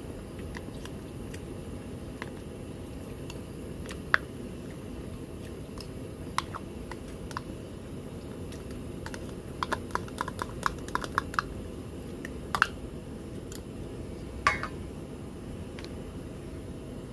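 Light clicks and taps of chopsticks against tableware during a meal, with a quick run of about eight clicks about ten seconds in and a louder clunk near the end, over a steady low rumble.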